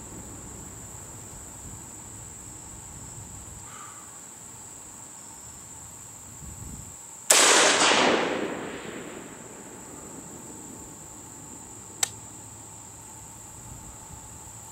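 A single shot from a Colt 6721 AR-15 rifle in 5.56 about seven seconds in: a sharp report whose echo dies away over about two seconds. A short, sharp click follows near the end.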